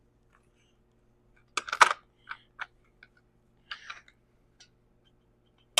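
Scattered clicks and knocks of hand tools on a chainsaw being taken apart, the loudest a quick cluster of knocks about two seconds in, with a few more after.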